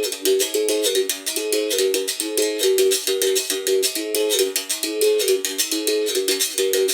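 Instrumental music on a high-pitched plucked string instrument, fast, even strumming under a short melodic figure that repeats over and over.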